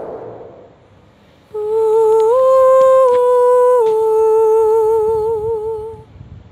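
A held hummed note with a slow wavering vibrato that fades out in the first second, then comes back about a second and a half in, steps up in pitch, drops back near four seconds and stops about six seconds in.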